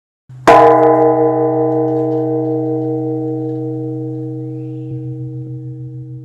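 Large Japanese Buddhist temple bell (bonshō) struck once, then a long ring of several tones that slowly dies away, the deepest tone wavering in a slow regular pulse.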